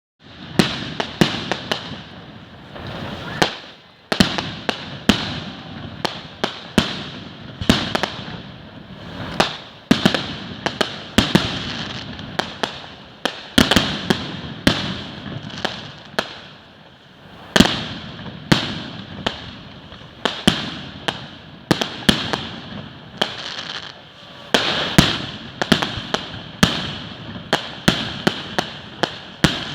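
Fireworks display going off in quick succession: many sharp bangs, often several a second, over a continuous crackle, with a short lull about four seconds in.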